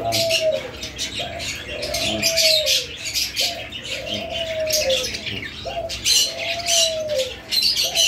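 A dove cooing over and over, each coo a drawn-out note that falls in pitch, about every one and a half seconds, over the constant high chirping of many small cage birds.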